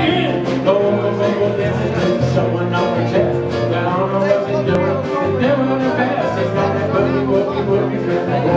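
Live country dance band playing an upbeat song, with guitars over a steady beat and a repeating bass line.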